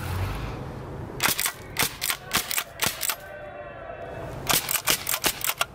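A quick series of sharp, loud clicks and snaps, many in close pairs, in two bursts with a short gap between them.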